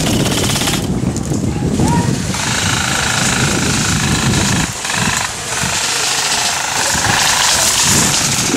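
Airsoft electric guns firing in rapid full-auto bursts over a loud, steady rushing noise.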